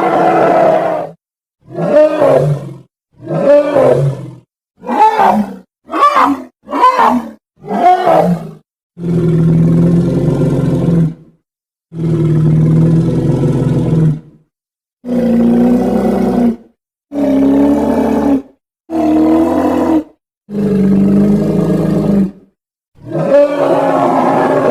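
A run of separate giant-gorilla roar and grunt sound effects, each cut off into silence. About six short calls swoop up and down in pitch, followed by six longer, lower, steadier roars, and a long roar begins near the end.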